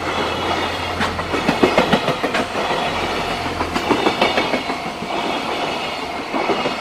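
Freight train wagons passing, their wheels clattering over the rail joints in a dense run of sharp clicks over a continuous rumble.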